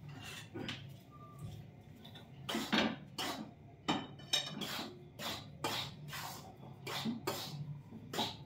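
Metal spatula scraping and knocking inside a metal kadai as it stirs a dry wheat-flour-and-ghee mix, in short strokes about two or three a second, starting a couple of seconds in. The pan is still hot off the flame, so the flour is kept moving so it does not stick to the bottom.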